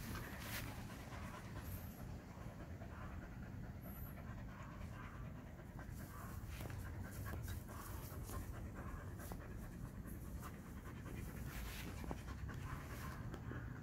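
Siberian husky panting steadily with its tongue out.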